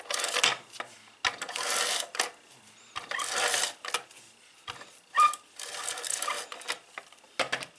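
Large handheld tape runner drawn across the back of a cardstock piece in about six strokes, each half a second to a second long, laying down adhesive.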